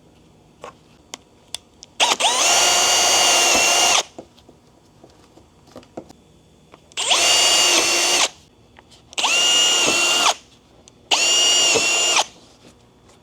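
Power drill drilling holes through the bumper trim, run in four separate bursts of steady motor whine: one of about two seconds, then three shorter ones of about a second each.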